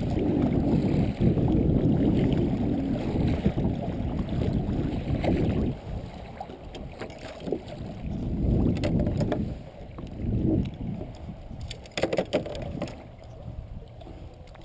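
Wind buffeting the microphone and water lapping around a 10-foot Pelican kayak as it is paddled. The wind noise is heavy for the first five seconds, then comes and goes in uneven swells, with a few light knocks about twelve seconds in.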